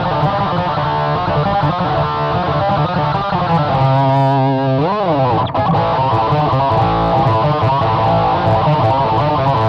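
Distorted electric guitar played through effects, sustained loud notes, with the pitch swooping up and back down about five seconds in.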